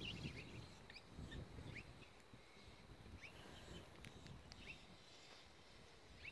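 Faint bird chirps: short, upward-sliding calls every second or so, over light wind buffeting the microphone.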